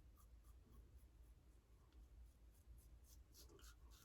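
A series of faint, short scrapes, a few a second: a Blackland Vector safety razor with a Feather Pro Guard blade cutting through lathered stubble.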